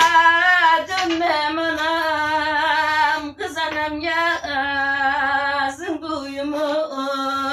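A woman singing a Turkish folk tune unaccompanied, holding long notes with a wavering pitch and taking short breaths between phrases.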